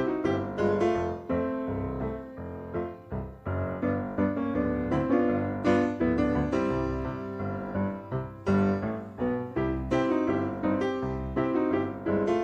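Background piano music: a stream of struck notes and chords.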